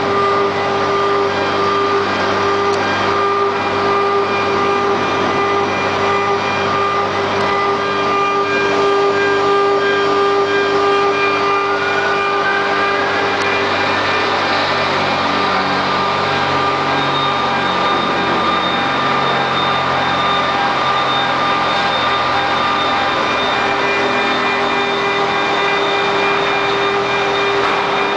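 QS6090 CNC router running, its spindle making a steady whine of several tones over a noisy hiss. A little past the middle one tone rises slightly in pitch.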